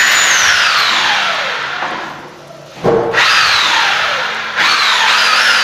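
Handheld electric power tool running, its motor winding down over about two seconds after the trigger is released. After a click it is started again in three or four short bursts, each a whine that rises and then falls off.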